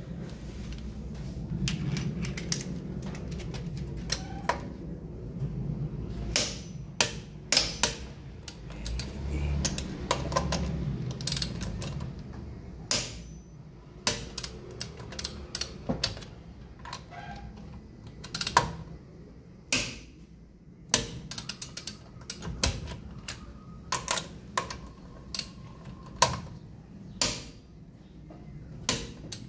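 Lug nuts being torqued with a click-type torque wrench set to 80 ft-lb: ratchet ticking and a string of sharp clicks, irregular, about one every second or two.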